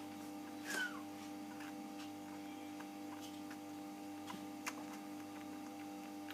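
A kitten mews once, a short cry falling in pitch just under a second in, followed by a few faint clicks over a steady hum.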